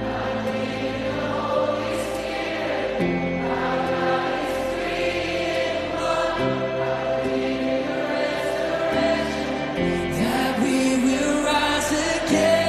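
Background music of slow sustained chords with singing voices, the bass note changing every three seconds or so.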